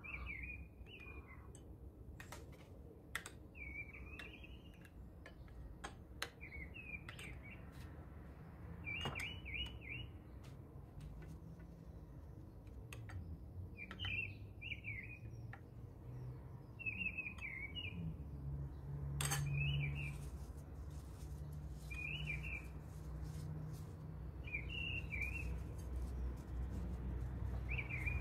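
A small bird chirping over and over, short chirps of two or three notes every two to three seconds, with light clicks of a metal spoon against a bowl as batter is stirred. A low steady hum sets in about two-thirds of the way through.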